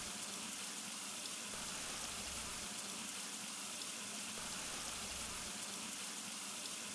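Steady hiss of water running through the concrete washing channels of a coffee wet mill.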